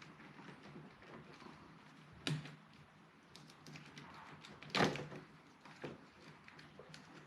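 Light plastic clicks and handling noise as electrical connectors behind a car door panel are worked loose and unplugged, with two louder sharp knocks about two and five seconds in.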